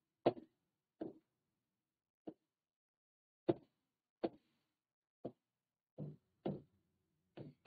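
Stylus tapping on an interactive whiteboard screen as on-screen menu options are picked: about nine short, irregularly spaced taps.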